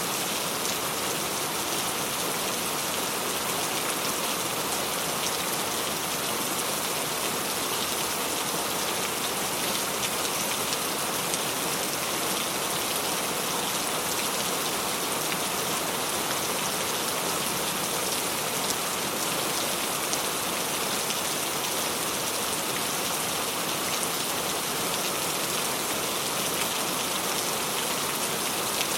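Steady rain falling: an even hiss of many small drops with fine scattered ticks, unchanging throughout.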